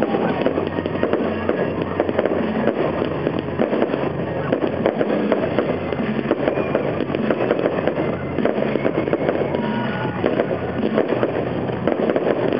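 Aerial fireworks bursting in a dense, continuous run of bangs and crackles.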